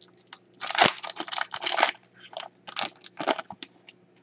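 Wrapper of a trading-card pack crinkling as it is pulled open by hand, in a run of short crackly bursts that are loudest about a second in.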